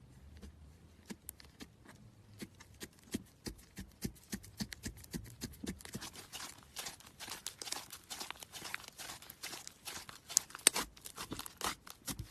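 Slime being squeezed and stretched by hand, giving off small sticky crackles and pops that come thicker and louder about halfway through.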